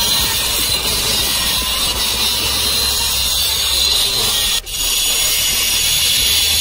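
Handheld angle grinder running under load, its cutting disc grinding through the floor with a steady high-pitched noise. It drops out for a moment just over halfway through, then picks up again.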